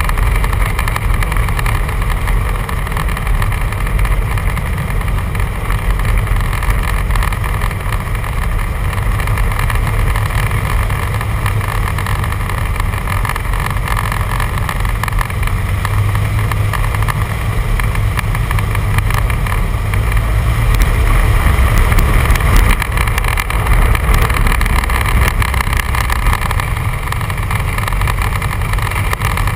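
Jodel 120A light aircraft's piston engine and propeller running steadily at low power while it taxis on grass, heard from inside the cockpit. It gets slightly louder a little past the middle.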